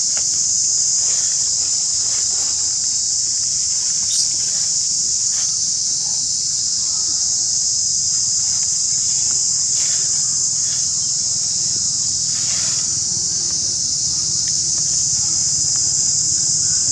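Insects droning steadily in a high, unbroken band, with a few faint rustles or clicks scattered through it.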